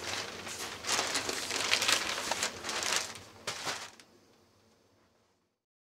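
Crinkling and rustling with scattered crackles, stopping abruptly about four seconds in.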